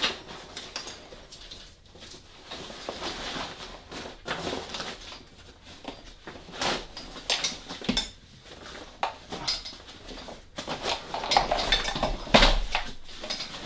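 Fabric carrier cover rustling as it is pulled down over a folded wagon, with scattered clicks and light clinks from the wagon's frame being handled, busiest near the end.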